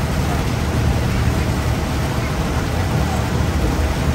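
Steady low rumble of a Thames Clippers river-bus catamaran's engines with water rushing past the hull, heard on board while the boat is under way.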